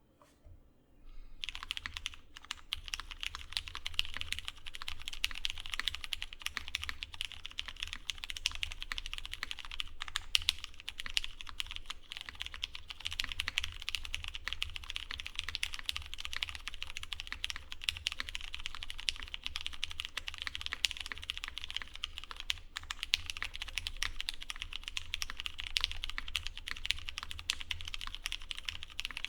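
Fast, continuous typing on a Deskdaily Paraluman mechanical keyboard with lubed and filmed Cherry MX Brown tactile switches in an aluminum plate on an O-ring gummy mount, under GMK Hyperfuse keycaps. The keystrokes start about a second and a half in.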